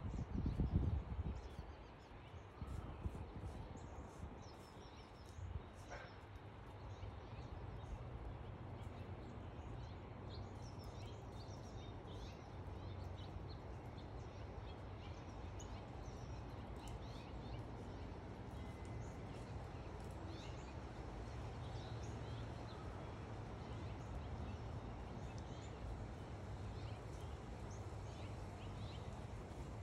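Backyard birds chirping, with many short, high chirps scattered throughout, over a steady low rumble that is loudest in the first second or two.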